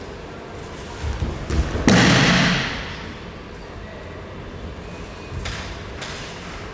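A judoka landing on the tatami during a kata throw: one heavy thud of the body hitting the mat about two seconds in, dying away over under a second, after a few softer thuds of feet on the mat.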